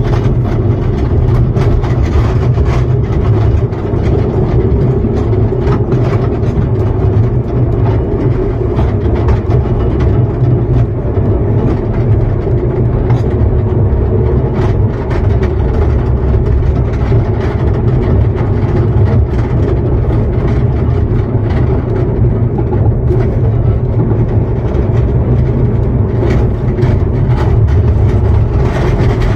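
Small-gauge train running along the track, heard from the coach right behind the locomotive: a steady loud rumble with frequent light clicks.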